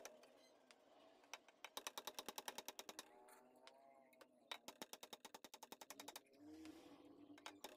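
Quick runs of faint, sharp metallic clicks, several a second, as a thin steel pick is worked against the commutator of a Makita 9553B angle grinder's armature.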